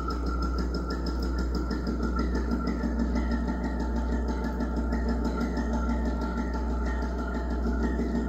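Steel exercise-equipment springs bowed along their length, amplified through piezo pickups and run through delay and filter pedals: a steady electronic drone with a regular pulsing warble from stick-slip friction between bow and spring.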